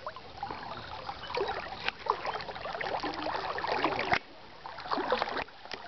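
River water trickling and gurgling, with many small irregular splashy sounds; it drops away sharply about four seconds in.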